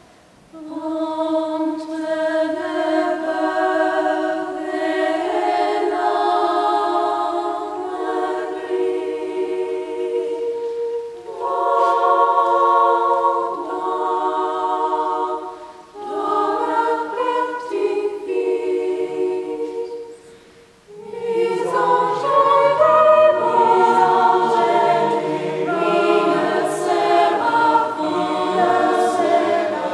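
Mixed choir singing unaccompanied in phrases with short breathing pauses. Higher voices sing alone at first, and lower voices join about two-thirds of the way through for a fuller sound.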